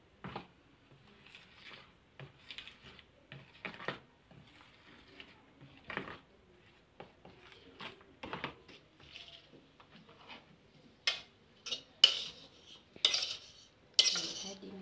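A spoon folding flour into cake batter in a plastic bowl, scraping and tapping against the bowl at irregular intervals. Louder, sharper handling sounds come in the last few seconds, as more flour is tipped in from a sheet of paper.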